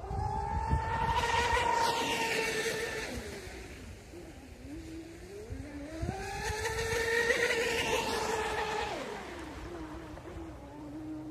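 Twin electric motors of a Minicat 820 EP RC catamaran whining at speed in two runs: each time the pitch climbs as the boat speeds up and then drops away as it slows or turns, about a second in and again about six seconds in.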